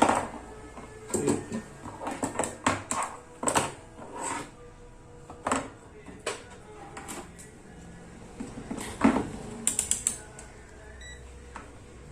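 Irregular sharp clicks and knocks, about a dozen of them, with a quick cluster of rapid clicks a little after halfway, typical of tools and small parts being handled on a workbench during electronics repair.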